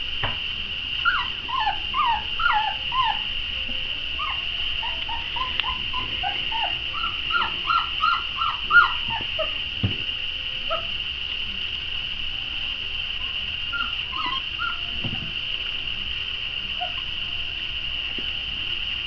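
Young puppies whimpering, with many short, high, falling squeaks in quick succession during the first half and only scattered ones later. A steady high-pitched whine runs underneath.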